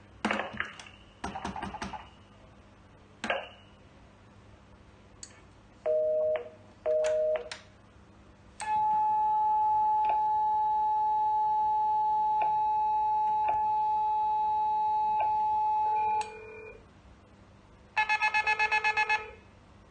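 Telephone signalling tones from a SIP intercom test: a few clicks of buttons being pressed, two short beeps, then a long steady tone of about seven and a half seconds. Near the end a fast warbling ringtone sounds, a call coming through.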